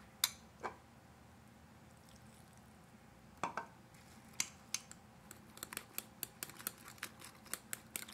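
Metal fork stirring pancake batter in a glass bowl, its tines clicking against the glass. The clicks are sparse at first, then quicken to about four a second in the second half.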